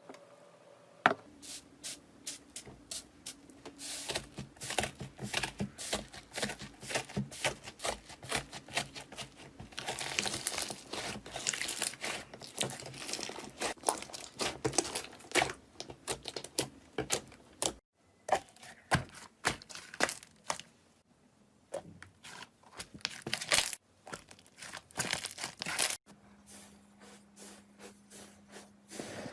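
Slime being squeezed, stretched and poked, making dense crackling and popping clicks that break off and start again twice.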